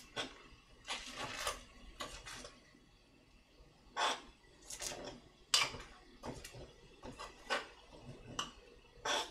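A utensil scraping and clinking against the inside of an earthenware ttukbaegi pot as egg mixture is stirred over the heat. The strokes come in an irregular series of short scrapes, with a brief pause about a third of the way in.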